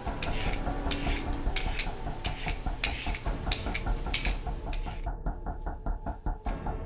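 Vegetable peeler scraping down a carrot in repeated strokes, each stroke a short rasp. About five seconds in, a fast, even ticking of about six strokes a second takes over.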